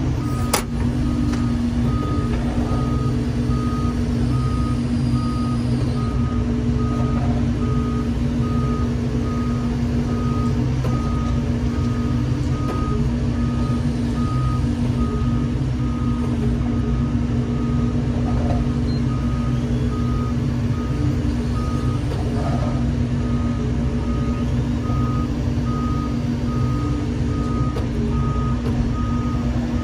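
Wheeled excavator's diesel engine running steadily while its warning alarm beeps over and over at an even pace on one high note.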